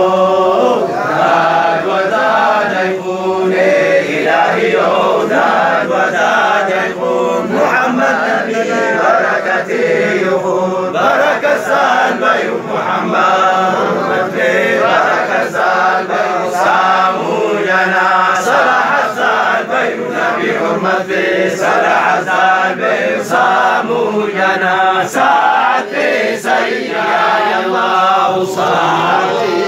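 A group of men chanting a Harari zikri, an Islamic devotional chant (menzuma), without a break.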